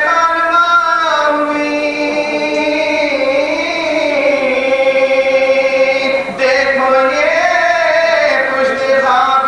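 Men chanting a marsiya, the Urdu mourning elegy, in long held notes that slowly rise and fall, with a short break about six seconds in.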